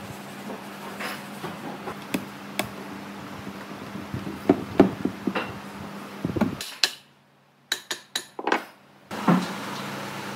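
Knocks and taps of heavy wooden boards and timber blocks being set and fitted together, over a steady hum. The background cuts out for about two seconds near the end, leaving only a few sharp clicks.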